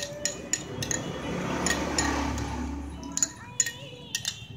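Metal spoon stirring in a small glass bowl, clinking against the glass again and again at an uneven pace.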